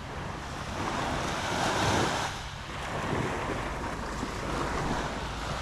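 Small ocean surf breaking and washing up the sand, swelling loudest about two seconds in, with wind on the microphone.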